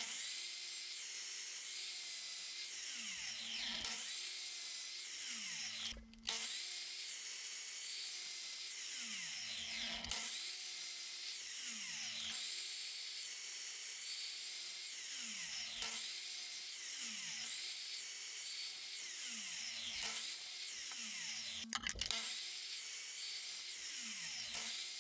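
Miter saw cutting thin slices off a white engineering-plastic rod, over and over; after each cut the motor's pitch falls away as the blade spins down.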